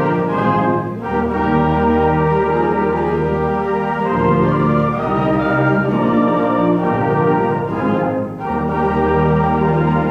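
Middle school concert band playing sustained chords with strong low brass, phrases breaking briefly about a second in and again near the end.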